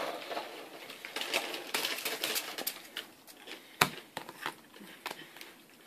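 Yu-Gi-Oh trading cards handled on a playmat: light rustling and scattered clicks of cards sliding and tapping, with one sharp tap on the table nearly four seconds in.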